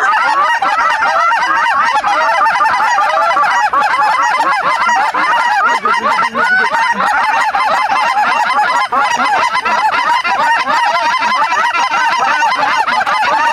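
A large flock of lesser Canada geese calling, a dense, unbroken chorus of many overlapping honks.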